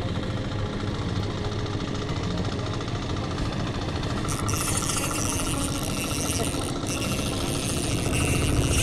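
Small boat engine running steadily with a low, rhythmic rumble. A higher hiss comes in about four seconds in.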